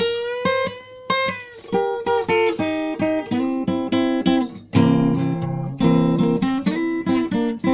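Acoustic guitar playing a quick run of single picked notes, with a fuller strummed chord coming in just before five seconds in.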